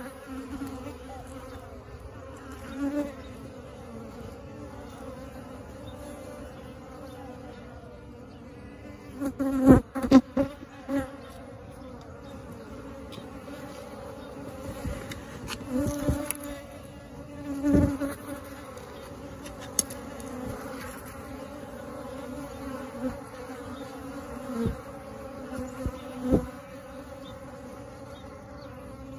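Honeybee swarm nesting in a brick wall cavity, a steady buzzing hum of many bees in flight. Several brief, louder buzzes and knocks come close to the microphone, the loudest about ten seconds in.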